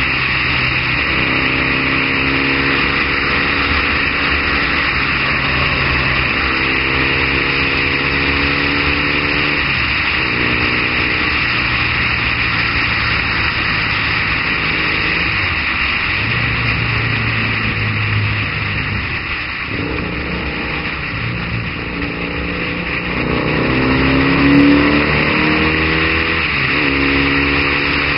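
Triumph Bonneville's parallel-twin engine running at road speed under strong wind rush on the onboard microphone. The engine note steps up and down with throttle and gear changes, and climbs and grows louder a little past two-thirds of the way through.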